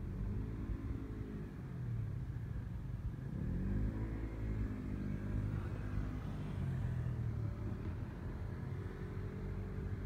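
A vehicle's motor running over a steady low rumble, its pitch rising twice: once near the start and again about three seconds in.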